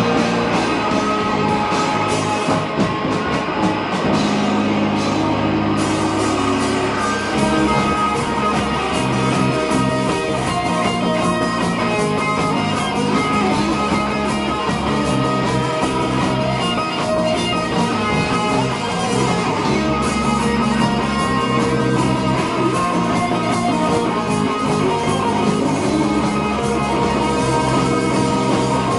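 A rock band playing live and loud, with distorted electric guitars, electric bass and a full drum kit going at full tilt.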